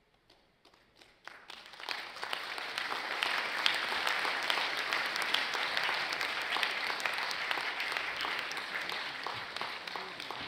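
Audience applauding: a few scattered claps at first, swelling into full, steady applause within about two seconds.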